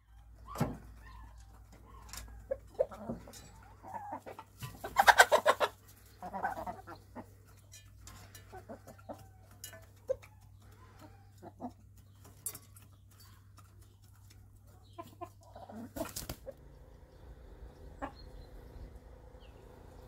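Chickens clucking in scattered short calls, with a louder burst of rapid calls about five seconds in.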